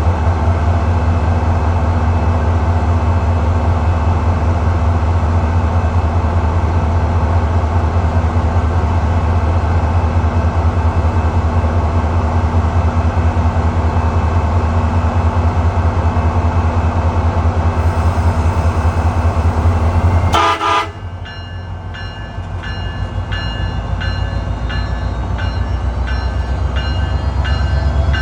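SunRail commuter train's diesel locomotive running loud and steady with a low hum as it departs. About twenty seconds in the sound drops off abruptly. A high ringing then repeats at an even pace while the engine sound builds up again.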